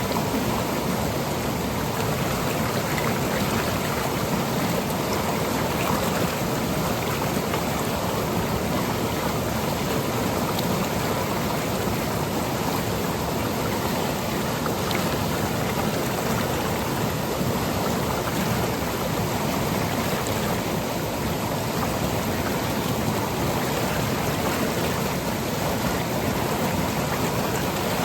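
Seasonal monsoon stream flowing over rocks and pebbles: a steady, unbroken rush of water.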